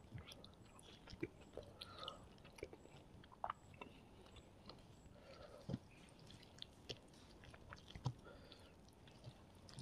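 Close-miked eating of Kerala porotta flatbread with curry: quiet mouth chewing, with scattered short wet clicks and smacks. Fingers tear the flaky porotta near the start and work into the curry near the end.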